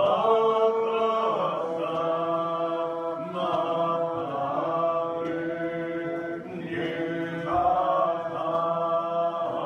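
Church congregation singing a hymn in the Muscogee Creek language, many voices together holding long notes.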